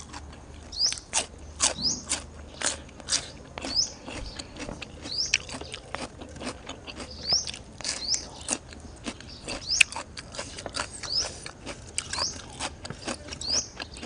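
Close-miked eating: repeated short, crisp crunches and chewing as a person bites into raw cucumber and eats spicy seafood salad.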